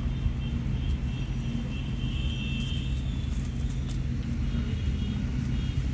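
An engine running steadily: an even low drone with no change in pitch.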